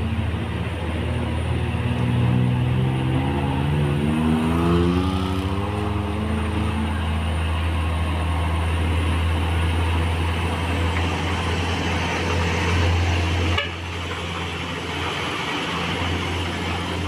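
Diesel truck engines running under load. About two seconds in, one engine's note climbs in pitch over a few seconds, over a steady low drone. Near the end the sound drops suddenly and then builds again.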